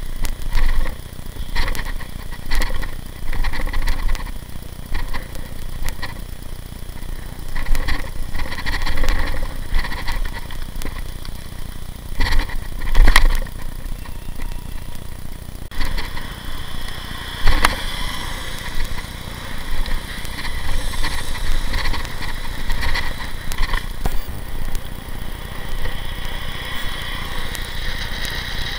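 Wind rushing over the microphone of a camera riding on a moving bicycle, with road rumble and frequent short knocks and rattles as the bike goes over bumps.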